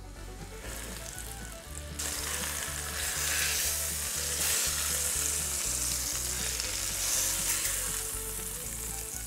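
Flour-dredged cube steaks sizzling in hot bacon grease in a Dutch oven as they are seared. The sizzle jumps up sharply about two seconds in, as a steak goes into the fat, and stays loud.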